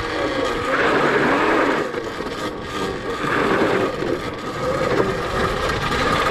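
QS Motor 2000 W mid-drive electric motor on a custom pit bike whining under way, its pitch rising and falling with the throttle, over the rolling noise of the tyres on a dirt trail.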